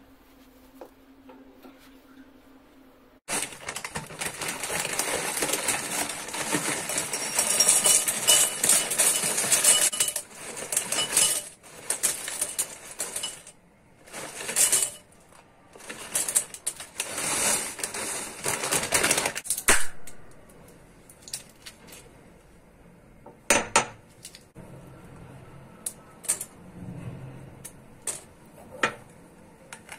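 A plastic packet crinkled and shaken, its dry contents pouring into a ceramic bowl, for a long stretch. Then a run of sharp separate cracks and clicks as walnuts are cracked and their shells and kernels are handled over the bowl.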